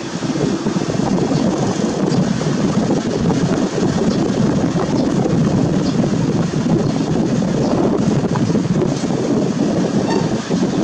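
Boeing 787-8's jet engines running at taxi thrust: a loud, steady rushing noise as the airliner taxis onto the runway.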